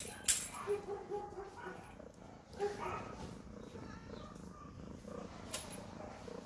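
Kitten purring steadily while its belly is rubbed. A sharp click comes about a third of a second in, and short squeaky calls repeat several times in the first three seconds.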